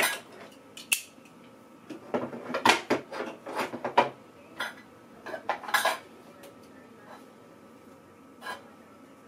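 Metal cutlery and kitchen utensils clinking and clattering as they are handled and set into a drawer organizer: a sharp knock at the start, another about a second in, then a quick run of clinks from about two to six seconds in, and one more near the end.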